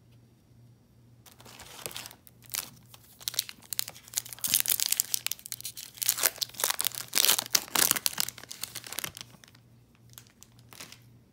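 Crinkly foil wrapper of a baseball card pack being torn open and crumpled: a busy, irregular crackling that builds to its loudest in the middle and thins to a few light rustles near the end.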